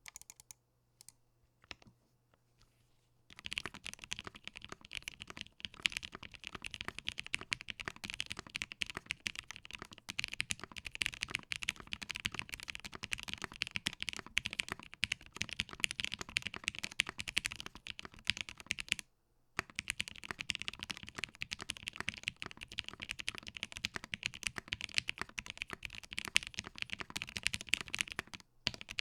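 Fast typing on a Satisfaction75, a 75% custom mechanical keyboard: a few scattered keystrokes, then a dense run of key clacks from about three seconds in that pauses briefly past the middle and picks up again.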